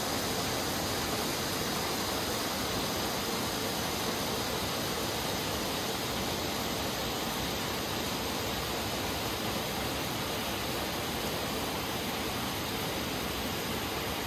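Steady hiss of many red hand flares burning at once.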